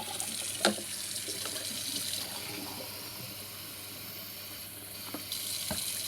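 Water running from a tap into a sink in a steady hiss, the flow easing after about two seconds and growing stronger again near the end. A sharp knock under a second in.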